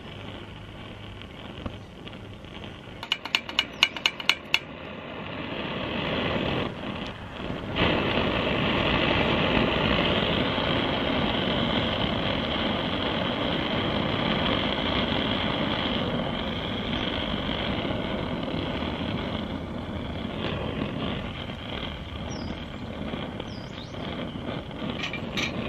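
Antique brass blowlamp burner running with a steady hiss that builds over a few seconds and then holds. Before it comes a quick run of about half a dozen sharp clicks.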